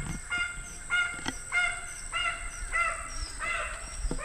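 Donkey braying: a long run of repeated pitched wheezing calls, about two to three a second, that grow longer and bend up and down in pitch, with a lower note joining near the end. It is an eerie-sounding bray, likened to the beginning of a horror movie.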